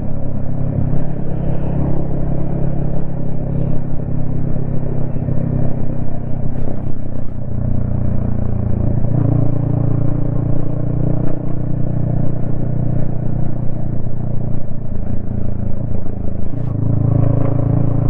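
Yamaha XSR155's single-cylinder engine running steadily as the motorcycle cruises along a road, heard from the rider's helmet. The engine note rises about halfway through, drops back briefly, then rises again near the end as the throttle changes.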